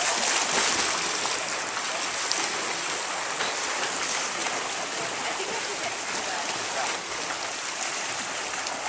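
Swimmers splashing as they swim across a pool: a steady wash of splashing water.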